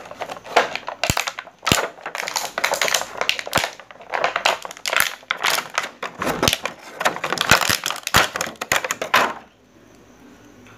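Clear plastic bag crinkling and rustling as it is worked off an action figure, with a few sharp clicks among the crackle. It stops about a second before the end.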